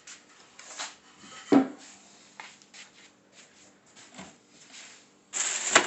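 Things being handled during an unboxing: scattered light knocks and rubbing, a sharper knock about a second and a half in, and a loud rustle near the end.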